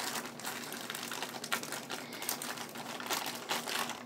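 Thin clear plastic packaging around makeup sponges crinkling as hands handle and open it: an irregular run of small crackles and rustles.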